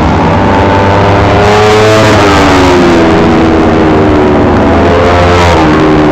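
Kawasaki Ninja 250 four-stroke parallel-twin racing motorcycles, engines revving hard as they come through a corner. The engine pitch falls off as they slow for the bend and then climbs again, with two louder close passes.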